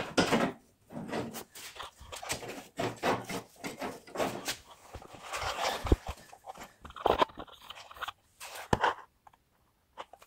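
Irregular clicks, knocks and rustles of things being handled, with a sharper knock about six seconds in and another near nine seconds.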